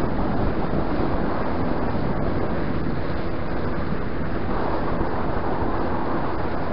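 Small motorboat with a Tohatsu outboard running at planing speed over choppy water: a steady rush of wind and water noise.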